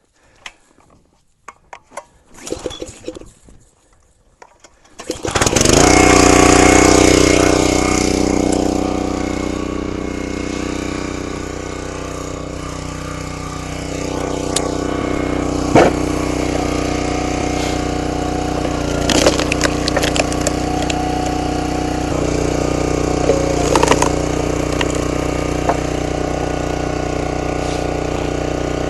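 A few faint clicks and rustles, then a small gasoline engine starts about five seconds in and settles into a steady run, with a few sharp knocks over it.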